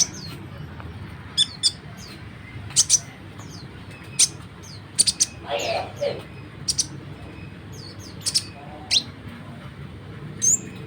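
Konin songbird calling: short, sharp, high chirps, often falling in pitch, coming singly and in quick pairs at irregular intervals. About five and a half seconds in there is a lower, rough, rasping sound, over a steady low hum.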